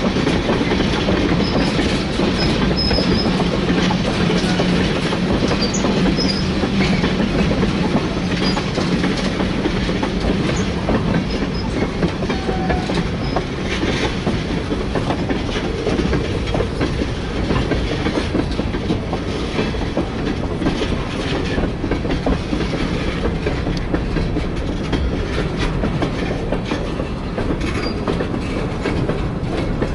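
Freight train cars (tank cars and covered hoppers) rolling past at close range. A steady rumble of wheels on rail with rapid clickety-clack ticks, easing slightly in the second half as the last cars go by.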